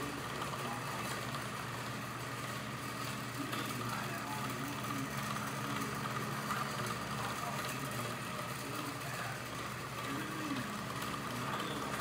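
1920s Westinghouse Rotoaire ceiling fan running, its head slowly turning around on the mount: a steady motor hum with a constant higher whine above it.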